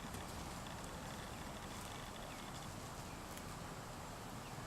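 Quiet outdoor ambience: a steady faint background hiss, with a couple of faint short chirps about halfway through and near the end.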